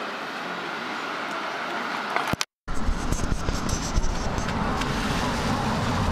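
Street traffic noise from cars and a column of vintage trams approaching, a steady rumble and hiss. About two and a half seconds in the sound drops out for a moment, then returns louder and deeper, with several sharp clicks.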